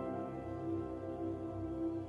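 Slow, ambient background music of long held chords.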